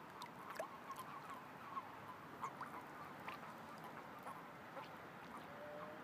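A faint, continuous chorus of many short overlapping calls from toads gathered in a pond to spawn, over a steady hiss, with scattered faint clicks.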